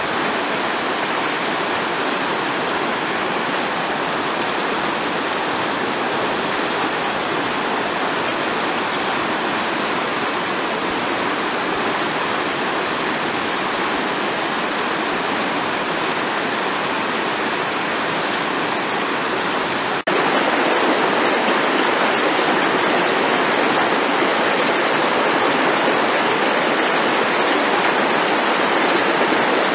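Fast-flowing river rushing over rocks and rapids, a steady continuous rush of water. It jumps louder at an abrupt cut about two-thirds of the way through, then stays steady.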